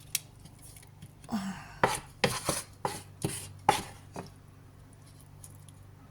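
Serving spoon clinking against cookware while sauce is spooned out: about nine sharp clinks in the first four seconds, then they stop.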